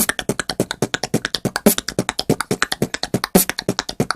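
Beatboxed groove: a rapid tongue click roll, a fast rattling string of clicks against the palate, played between beatboxed kick drum and punch snare hits, in the pattern kick, click roll, kick, click roll, punch snare, click roll, kick, click roll.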